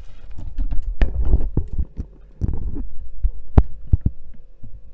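Phone camera being handled and set in place: rubbing and thuds on its microphone, with sharp clicks about a second in and again a few times near the end, over a faint steady hum.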